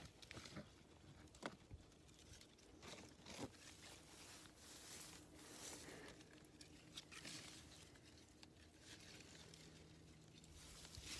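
Faint, scattered rustling and crinkling as grapes are picked from the vines for a juice sample, over a faint steady low hum.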